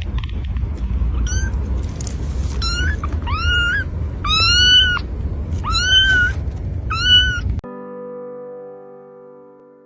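A cat meowing repeatedly, about six rising-and-falling meows over a low rumbling background. It cuts off abruptly near the end, where a held keyboard chord fades out.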